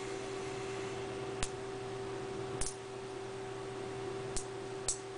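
Small neodymium magnet spheres clicking sharply against each other about four times, spaced out, as they are handled and snapped into place, over a steady background hum.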